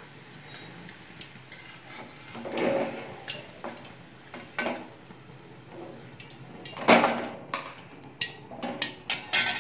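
Metal skimmer scraping and knocking against a steel kadai and a plate as fried bread rolls are lifted out of the oil, with a loud clatter about seven seconds in and a few light clicks near the end.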